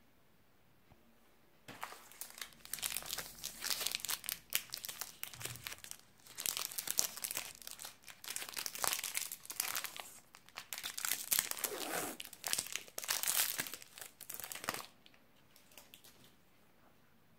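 Plastic wrapper of a KitKat Chunky bar crinkling and crackling as it is opened and peeled off the bar. It starts about two seconds in, goes in three long stretches, and stops a few seconds before the end, leaving only a few faint ticks.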